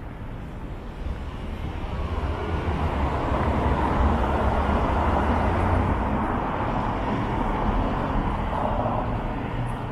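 Street traffic: a motor vehicle passing close by, its rumbling noise building over the first few seconds and easing off slightly toward the end.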